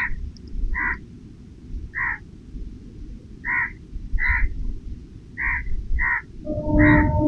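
A squirrel calling: eight short chirps at uneven spacing, roughly one a second. A steady low hum of unknown source comes in near the end.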